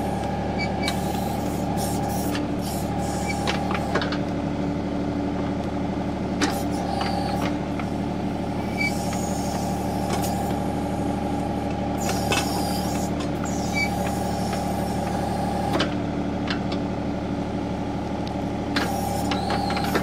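John Deere compact tractor's diesel engine running steadily while driving a John Deere 270B backhoe digging out a tree stump. The engine note shifts several times as the hydraulics take load moving the boom and bucket, with scattered short knocks and scrapes from the bucket working the stump.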